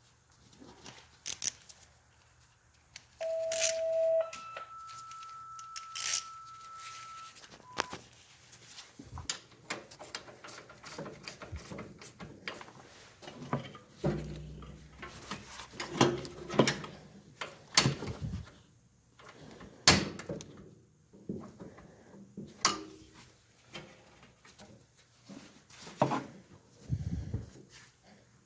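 Scattered knocks, clanks and clicks from tools and parts being handled while a snow blower is worked on. About three seconds in, two steady tones sound one after the other, the second higher than the first and lasting about three seconds.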